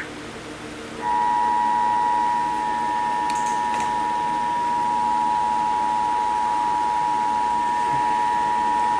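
Emergency Alert System two-tone attention signal (853 Hz and 960 Hz sounded together): a steady, loud two-note tone that starts about a second in and holds for about eight seconds, announcing an emergency alert broadcast.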